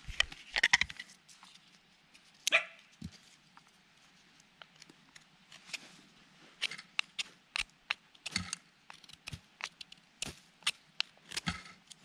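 Fixed-blade knife pulled from its plastic sheath with a few sharp scrapes, then shaving a dry wooden stick in a run of short, quick scraping strokes from about six seconds in.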